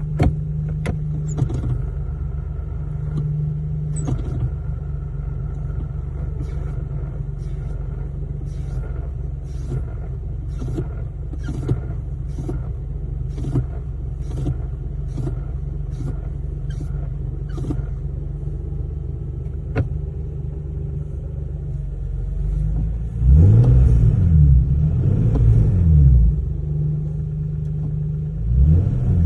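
Lexus GS 300 engine running with a steady low drone while driving, with a regular ticking about one and a half times a second for roughly ten seconds. About 23 seconds in, the engine gets louder and its pitch rises and falls for a few seconds as it is revved.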